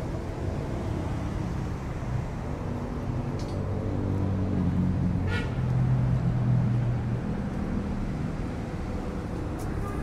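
Steady road traffic with vehicle engines running past, growing louder around the middle as a vehicle passes close and then easing off. A short high-pitched sound cuts in once about five seconds in.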